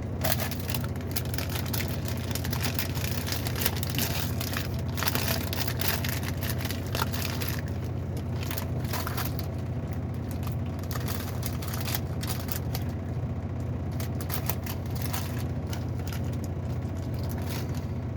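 A cinnamon marshmallow Peep being eaten close to the microphone: scattered mouth clicks and crackles over a steady low hum.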